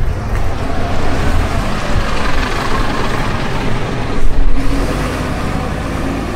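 A bus driving past, its engine and road noise building over the first few seconds, peaking loudly about four seconds in, then easing off.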